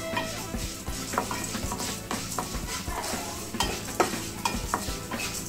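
Wooden spatula stirring chana dal, urad dal and coriander seeds as they roast in a little oil in a nonstick kadai: dry, rattling scrapes that come irregularly, several a second. This is the slow roasting step that turns the dals reddish for a podi.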